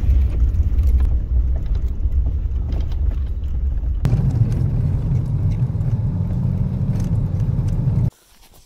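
Road noise inside a car's cabin while driving on a dirt road: a steady low rumble of the engine and tyres. The rumble shifts in pitch about four seconds in and drops away abruptly near the end.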